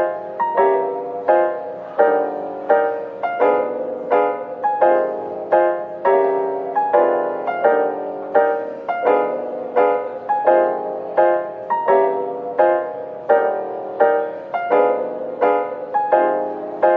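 Background piano music: notes and chords struck at an even, steady pace, about three every two seconds.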